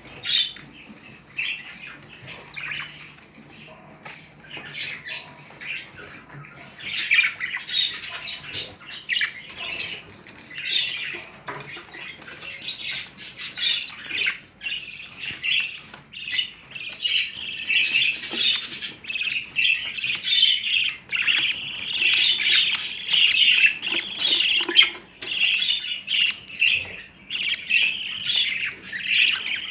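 A flock of budgerigars chattering and squawking: a dense stream of rapid chirps, getting busier and louder from about a third of the way in.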